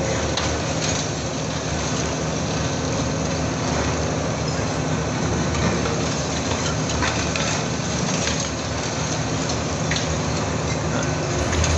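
Heavy diesel engine of a high-reach demolition excavator running steadily under a constant hiss, with scattered short cracks and crunches of concrete and masonry breaking away from the building.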